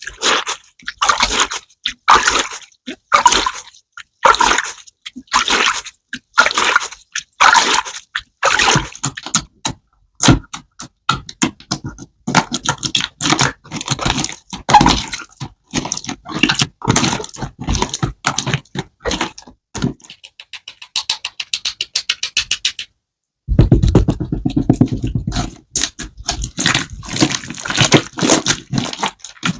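Hands squishing and poking slime: sticky clicks and wet pops in irregular bursts with short pauses, a run of fast, fine crackling about two-thirds through, then a dense run of rapid pops.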